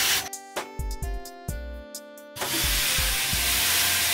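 Hot steel axe blade, cut from a tractor disc plough, being quenched in a water trough: a loud steam hiss that fades out just after the start and comes back a little past halfway. Background music with plucked-string tones and a low beat plays between the hisses.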